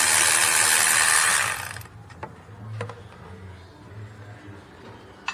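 Electric ratchet spinning out a 14 mm brake caliper bolt, a steady whir that stops about a second and a half in. A few light clicks follow as the bolt and tool are handled.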